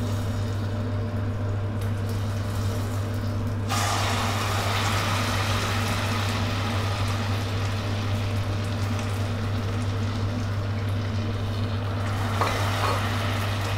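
Mushroom light soy sauce poured from a ladle into hot caramelized palm sugar in a steel pot, starting to sizzle and bubble about four seconds in and continuing steadily. A steady low hum runs underneath.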